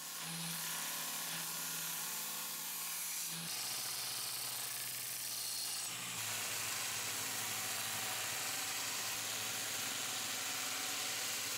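Belt grinder running, its abrasive belt grinding the steel of a knife blade: a steady hiss over the motor's low hum. The hum steps down in pitch twice, about three and a half and six seconds in.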